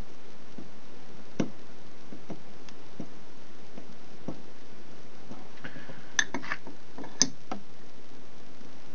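A few scattered light clicks and taps, with a small cluster near the end, as a soldering iron tip touches and works the pads of a small circuit board while melting solder out of the header pin holes.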